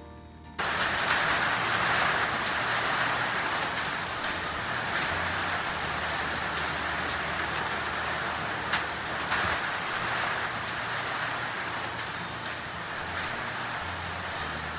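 Rain pouring down on leafy trees in a summer storm: a dense, steady hiss with scattered drops ticking, cutting in abruptly about half a second in.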